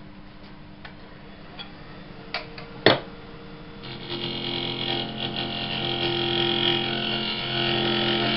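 Wood lathe motor running with a steady hum and a sharp click about three seconds in. From about four seconds a turning tool cuts into the inside of the spinning segmented stave blank, hollowing it out with a louder, steady scraping noise over the motor.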